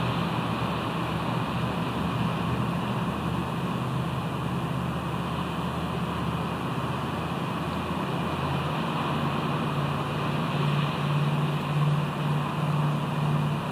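Steady rushing noise of wind and ocean surf at an exposed seaside rock, with a low rumble that swells and fades in the last few seconds.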